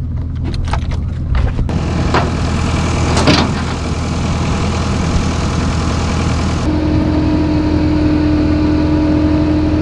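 Tow truck's engine running steadily, with a few clicks in the first couple of seconds. A steady whine sets in about two-thirds of the way through.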